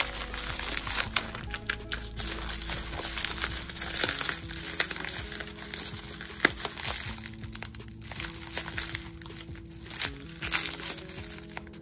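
Packing wrap crinkling and crackling in irregular bursts as a parcel is unwrapped by hand, with one sharper crack about six and a half seconds in. Soft background music with held notes plays under it.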